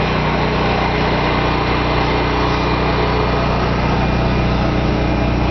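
A small engine running steadily with a constant low hum.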